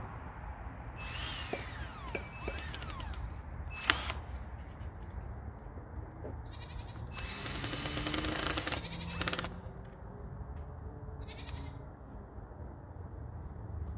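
Cordless drill driving screws into wooden door posts in a few short runs. Its motor speeds up and slows down, with one two-second run about seven seconds in and a sharp click just before four seconds. Goats bleat in the background.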